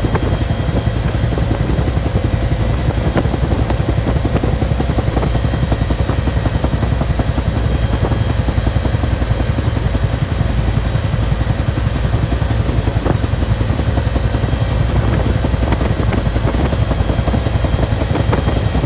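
Bell helicopter heard from inside the cabin in flight: a steady loud low rotor rumble with a constant high-pitched turbine whine above it.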